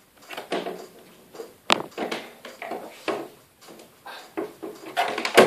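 Rustling, bumps and clicks of a lamp and its power cord being handled and plugged in, with a sharp click a little under two seconds in and a louder knock at the very end.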